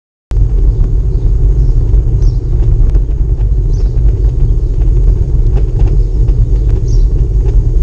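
Bicycle rolling over cobblestones, picked up by a bike-mounted camera: a loud, steady low rumble with small rattling clicks as the wheels and frame shake over the stones. It starts abruptly just after the beginning.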